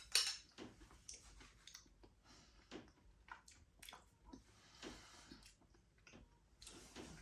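A man chewing a mouthful of creamy sausage pasta with sweet corn and peas: faint, irregular mouth clicks and smacks.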